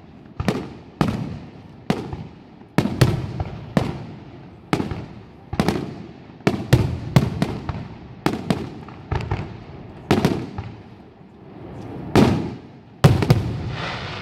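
Aerial firework shells bursting in quick succession: sharp bangs every half second to a second, each with a rumbling echo. After a brief lull, a swell leads into a bigger bang near the end, followed by a steady hiss.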